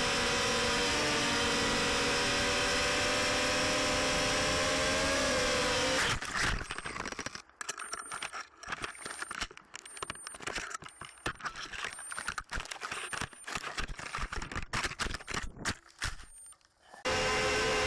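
Hermit 145 V2 micro quadcopter's motors and propellers whining steadily in flight, cut off about six seconds in by a crash. Then irregular knocks and rustling as the downed quad lies in leaves and grass, with a faint high beep about once a second from its lost-model buzzer. The motor whine starts again near the end.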